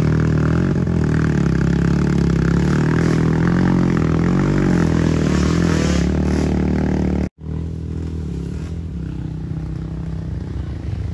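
Motorcycle engine running under way, its pitch rising and falling with the throttle. About seven seconds in the sound cuts off for an instant, then carries on quieter.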